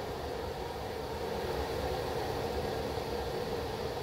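Steady rushing of a propane burner running under a stainless-steel brew kettle, the wort inside at a hard rolling boil.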